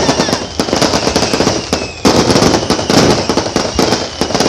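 Fireworks going off in a dense, rapid barrage of crackling pops, many per second, easing briefly about two seconds in and then starting up again.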